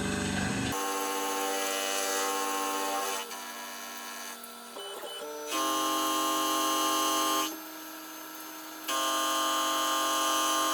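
CNC milling machine's axis drives whining in steady multi-pitched tones that switch abruptly from one pitch and level to another as moves start and stop. Louder spells of about two seconds each come in the second half.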